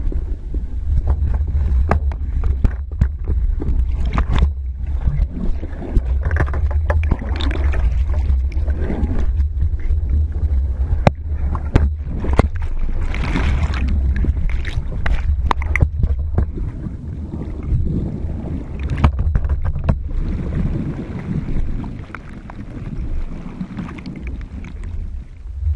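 Water churning and bubbling around a speargun-mounted camera underwater, heard as a steady low rumble with many scattered clicks and knocks, dipping quieter near the end.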